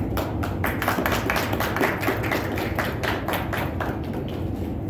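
Scattered hand clapping from a small group, stopping a little after four seconds in, over a steady low hum.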